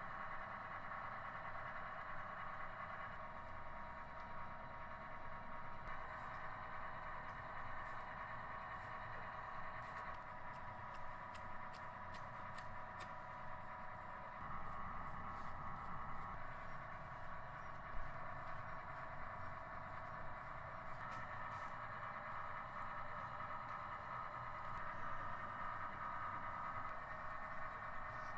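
Steady hum of workshop machinery with faint light ticks, its tone shifting every few seconds, and one low thump about eighteen seconds in.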